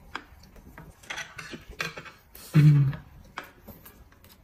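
Light clicks and taps of eating utensils against a plate, with eating noises. About two and a half seconds in comes a brief hummed 'mm'.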